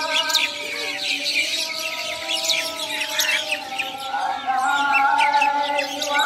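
Muezzin's Maghrib call to prayer (azan) sung through a mosque's loudspeaker horns, holding one long note that shifts pitch about four seconds in. Many birds are chirping busily over it.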